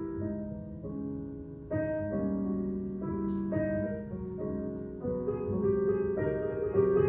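Jazz-style piano music for ballet class, a string of chords and melody notes played at an easy pace.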